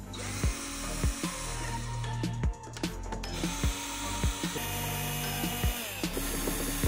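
Cordless drill-driver whirring as it backs out screws from a plastic speaker front panel, over background music with a steady beat.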